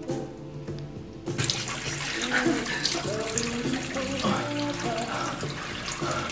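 A water tap turned on about a second in, then running steadily into a sink, with background music underneath.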